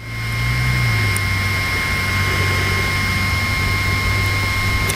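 A steady mechanical hum with a low drone that settles slightly lower in pitch about a second in, and a thin, steady high whine over it.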